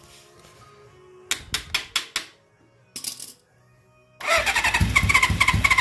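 A few sharp clicks, then about four seconds in the 1980 Suzuki GS550's air-cooled inline-four engine turns over on the starter and catches, running loudly with a fast pulsing beat through its loud exhaust.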